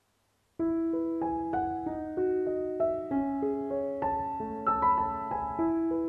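Piano music starting about half a second in: a slow, gentle melody of single struck notes, several a second, ringing over held lower notes.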